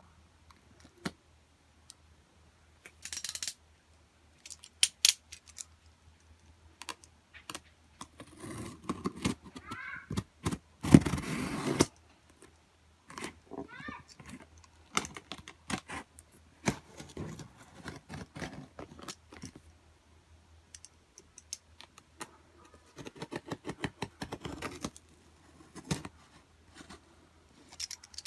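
Hands handling a tape-wrapped cardboard shipping box, picking and scraping at the packing tape: scattered taps, scrapes and rustles, with a louder scraping stretch of about a second near the middle and a run of scratching later on.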